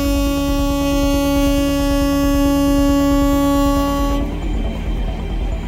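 Train horn sounding one long steady blast of about four seconds at the flag-off of a container train, then cutting off.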